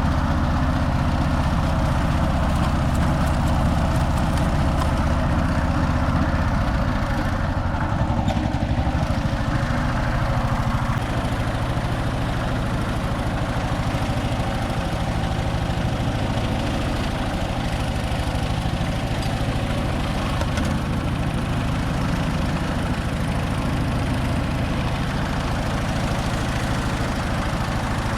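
Konma MT-S411D harvester (rice thresher) running steadily, its engine and threshing mechanism turning over, on a test run to find an abnormal noise reported during threshing.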